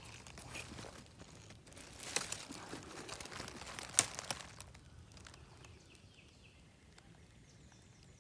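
Dry forest-floor leaf litter rustling and crunching, with a few crackles and one sharp click about four seconds in. Faint, short bird chirps in the second half.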